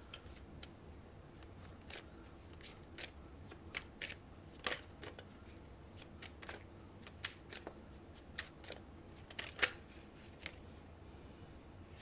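A tarot deck being shuffled by hand, with irregular card clicks and snaps.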